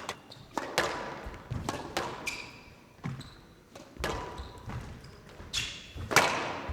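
A squash rally: the ball struck hard by rackets and cracking off the walls and floor, about ten sharp hits spaced irregularly a few tenths of a second to a second apart, with brief high squeaks from court shoes between them.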